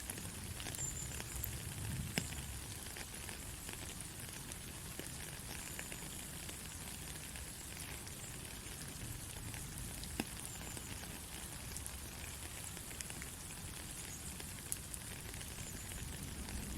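Steady soft rain, a continuous hiss with scattered individual drop ticks and a low rumble underneath.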